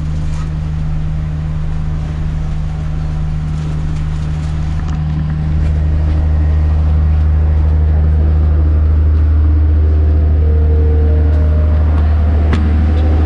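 Steady low drone of the stationary train's diesel engine running at idle, growing louder about halfway through as the listener nears the door and the platform.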